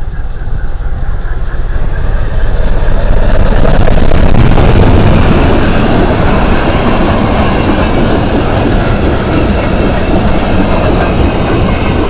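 Class 52 steam locomotive 52 8177-9 and its train of passenger coaches passing close by: a loud rumble with wheels clattering on the rails, swelling to its loudest about four seconds in as the engine goes by, then the coaches rolling past.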